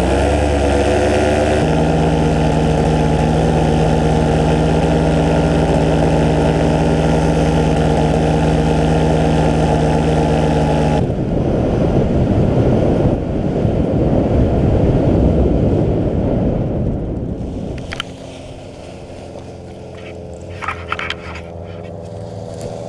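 Paramotor engine and propeller running at steady power, throttled back about eleven seconds in. Wind rushes past the microphone during the glide that follows. After the landing the engine idles low, with a few sharp knocks near the end.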